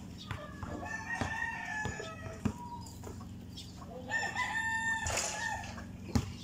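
Rooster crowing twice, each crow a long call of about a second and a half. Sharp thuds of a basketball bouncing on the concrete court come in between.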